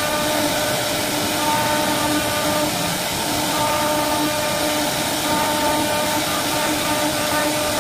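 CNC router spindle running and cutting slots into a wooden door panel: a steady loud hiss with a whining tone that comes and goes as the bit moves through the wood.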